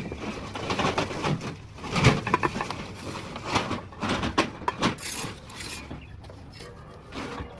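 Brick masonry work: irregular clinks and knocks of bricks and steel trowels, with scraping of mortar in between.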